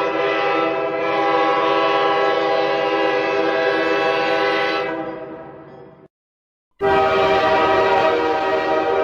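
Train air horn held in a long steady blast that fades out about five seconds in. After a short gap of silence, a second horn blast starts abruptly near seven seconds.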